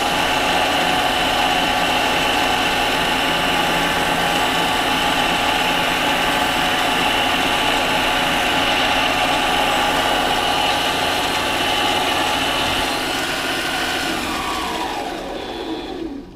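Harbor Freight mini lathe running with a steady motor whine and hiss while turning down a steel shaft. Near the end the whine falls in pitch as the lathe is switched off and spins down, and the sound cuts off.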